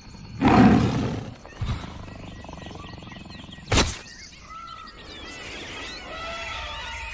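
A loud rustling burst, a sharp click about four seconds in, then a run of short, quick chirping calls that glide up and down.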